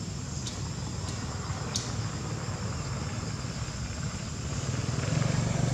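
Outdoor background: a low motor-like rumble that grows louder near the end, under a steady thin high whine, with a few sharp clicks in the first two seconds.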